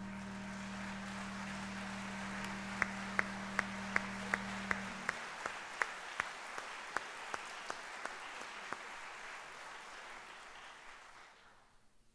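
Audience applauding, with one pair of hands close by clapping loudly in an even beat of about two to three claps a second that thins out and stops, the applause dying away near the end.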